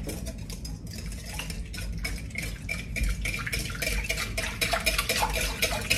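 Wire whisk beating yeast, sugar and lukewarm water in a bowl: a fast run of light clicks and taps as the wires strike the bowl, busier in the second half.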